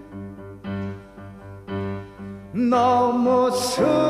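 Piano playing slow, separate chords that ring and fade; about two and a half seconds in, a man's voice in Korean sori style slides up into a long held note, beginning the next sung line.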